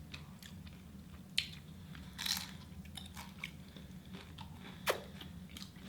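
Close-miked chewing of a burger with pickles: wet mouth clicks and crunches, with a longer crunch about two seconds in and sharp clicks near one and a half and five seconds.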